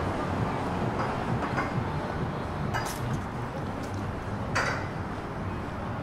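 City street background: a steady low rumble of traffic, with two short sharp knocks about three and four and a half seconds in.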